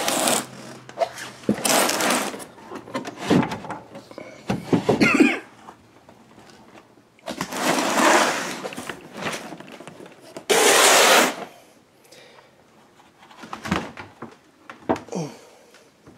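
Old wooden drawers and a trunk being pulled open and handled: several scraping slides of about a second each, the loudest a little past halfway, then a few knocks of wood near the end.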